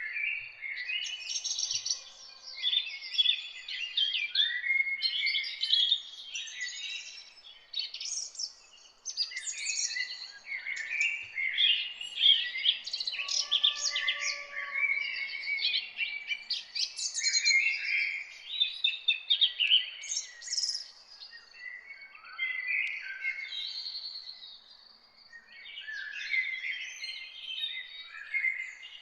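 Many songbirds singing at once: a dense chorus of quick, high, overlapping chirps and trills that thins out briefly twice.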